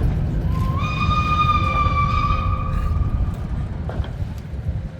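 A train whistle blows one steady note for about three seconds, rising slightly as it opens, over the low rumble of the train running.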